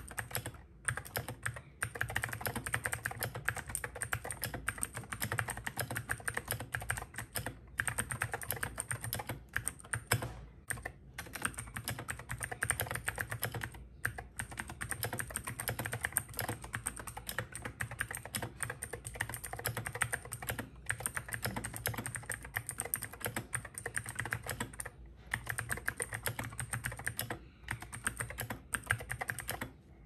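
Rapid, continuous typing on a mechanical keyboard with Gateron Blue clicky switches, a dense run of sharp clicks broken by a few short pauses and stopping near the end.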